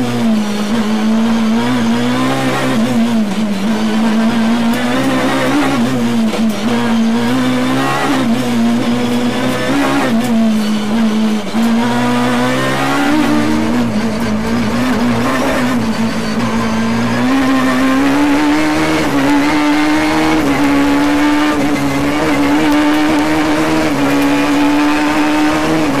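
Peugeot 306 Maxi rally car's naturally aspirated 2.0-litre four-cylinder engine, heard from inside the cockpit while it is driven flat out. The revs climb and drop again and again.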